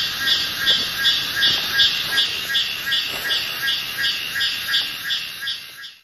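Loud rhythmic call of a forest animal, a pulsing buzz at about three pulses a second, that cuts off suddenly at the very end.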